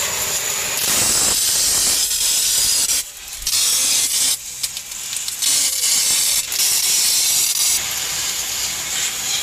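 Garden hose nozzle spraying a jet of water onto an iced-up freezer evaporator compartment to melt the ice, a steady hiss. The spray briefly drops off about three seconds in and again around four and a half seconds in.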